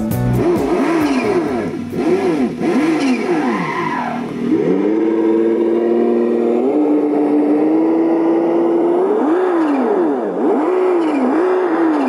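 Simulated car engine from an RC car's sound module being revved: repeated rising-and-falling throttle blips, then a steady high rev held for several seconds, then more blips near the end.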